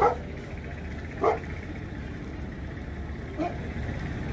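Alaskan malamute barking three times: two loud short woofs about a second apart, then a weaker one about two seconds later.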